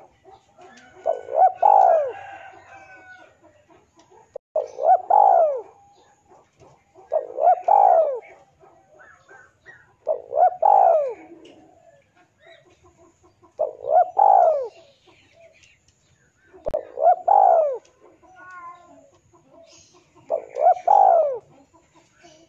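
Male spotted dove cooing its call phrase seven times, one every three seconds or so, each a short group of deep arching coos. This is the male's call to rival males.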